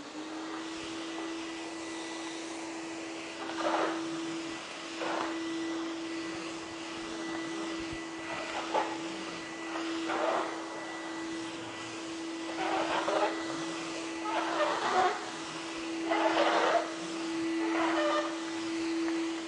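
Vacuum cleaner running with a steady motor whine and a rush of air, with louder rushes of noise every second or two.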